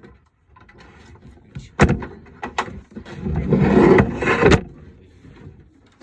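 Desktop computer case being opened: a sharp knock, then the side panel scraping as it slides along the chassis for about a second and a half, ending in a click.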